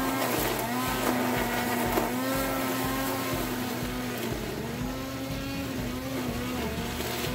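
Corded electric string trimmer running with a steady motor whine. Its pitch dips briefly several times as the line bites into weeds, then recovers.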